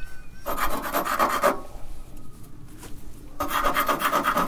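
A small plastic distributor rotor is scraped back and forth against a rusty metal file in quick rasping strokes, cleaning its contact. There are two bouts of filing, about a second each, the second starting about three and a half seconds in.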